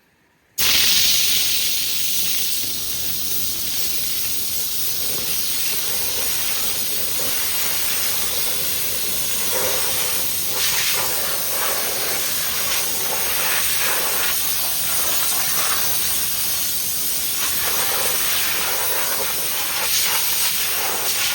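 Compressed-air blow gun hissing loudly and steadily as it blasts soybean dust off a combine. It starts suddenly about half a second in, and the hiss shifts a little in tone as the nozzle is moved over different surfaces.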